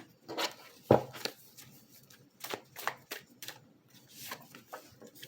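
Deck of tarot cards being shuffled and handled, with a series of short sharp card snaps and taps, the loudest about a second in.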